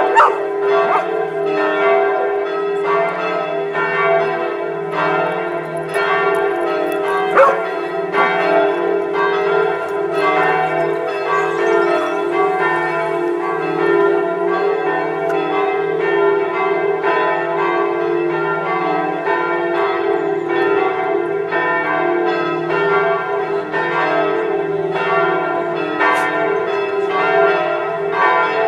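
Church bells pealing in a continuous run of repeated strikes, ringing steadily throughout. A dog barks once, briefly, over it.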